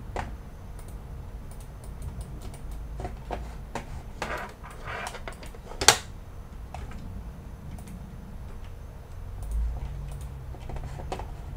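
Scattered clicks and taps of computer keyboard and mouse use, with one sharper click about six seconds in, over a low steady hum.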